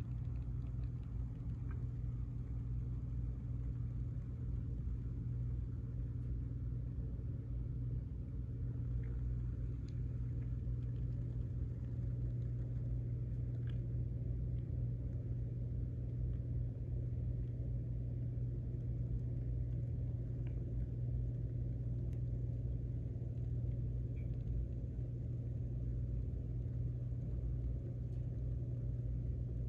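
Steady low hum and rumble that stays unchanged throughout, with no distinct events.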